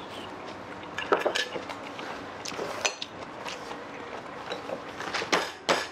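Metal chopsticks and tableware clinking against ceramic dishes, a scatter of short sharp clicks with two louder ones near the end.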